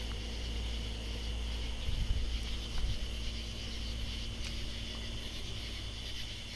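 Katydids calling in a steady night chorus over a low, steady machine hum, with a couple of soft handling bumps about two seconds in.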